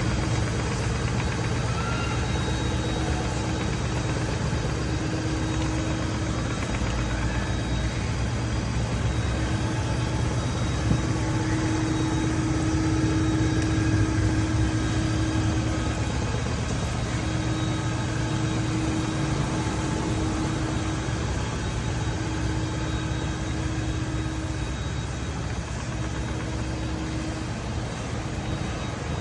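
Makita VS001G cordless vacuum sweeper running steadily, a constant motor hum with a mid-pitched tone that fades in and out.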